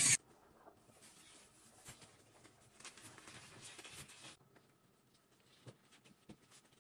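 A handheld electric spin scrub brush scrubbing a glass stovetop cuts off just at the start. Then comes faint rubbing with small taps as gloved hands wipe the soapy glass, fading to a few scattered clicks after about four seconds.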